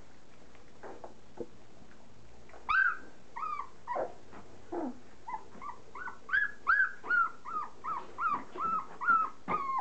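Young standard poodle puppy whimpering in a run of short, high, arching cries, about two or three a second, starting nearly three seconds in and going on steadily. Before the cries come faint soft clicks of puppies lapping at soaked kibble in the bowl.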